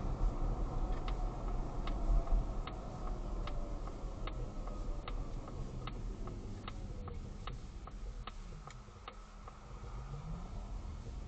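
Sharp clicking from a Polestar 2's suspension as the car moves, at first about once a second and then faster, over low road rumble. The noise persists after two repair attempts.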